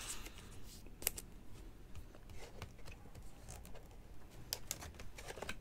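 Trading cards being handled and flipped through by hand: faint sliding and rustling with a few light clicks as cards are pulled off a stack, one about a second in and several near the end.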